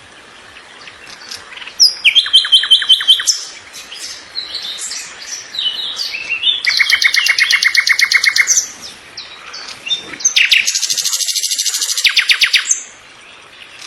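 A songbird singing: three long, fast trilled phrases with short chirps and whistled notes between them.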